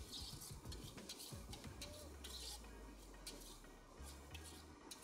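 Metal spatula scraping and clinking against a steel kadai as a thick spice masala paste is stirred, with a string of short taps and scrapes.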